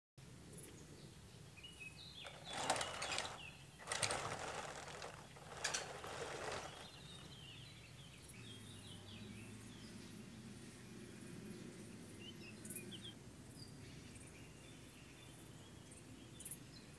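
Faint outdoor ambience: small birds chirp now and then, three short noisy swishes come in the first half, and a low steady hum sets in about halfway through.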